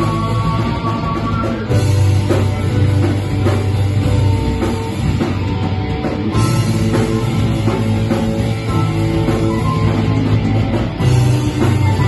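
Live heavy rock band playing: drum kit, electric guitar, bass and keyboard together at full volume, getting a little louder about two seconds in.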